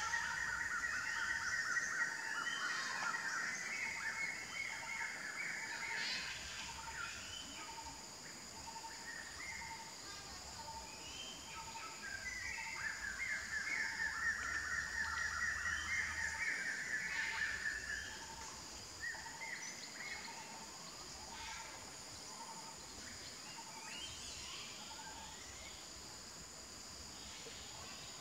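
Forest birds and insects: a steady high insect drone throughout, a bird repeating one low note a little faster than once a second, and scattered short chirps. Two long, fast trills are the loudest sounds, one at the start lasting about six seconds and another about twelve seconds in.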